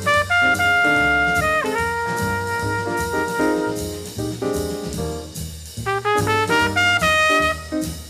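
Jazz tenor saxophone playing a ballad melody over a stepping bass line. It holds two long notes in the first half, then breaks into quicker runs of short notes near the end.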